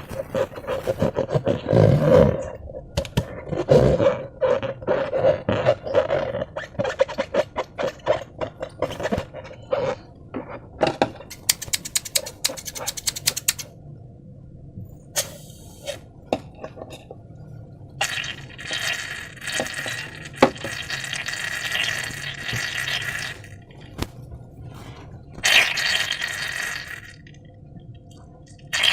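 Slime being squeezed and worked by hand: a dense run of quick wet squelches and clicks for about the first ten seconds, a short rapid crackle, then two longer hissing stretches in the second half.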